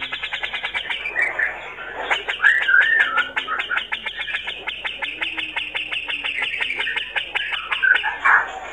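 Male grey-cheeked bulbul (cucak jenggot) singing vigorously: a fast chattering rattle of short repeated notes, about ten a second, broken by brief warbled whistles about two and a half seconds in and near the end.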